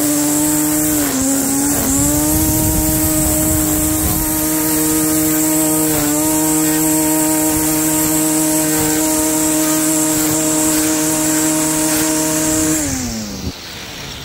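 Lawn mower running at a steady pitch with a high whine, sagging briefly a couple of times as it takes load from the grass, then winding down and stopping near the end.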